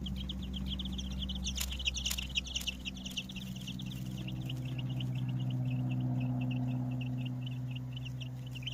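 Domestic chicken chicks peeping rapidly and continuously in high, short cheeps, several a second, over a steady low hum.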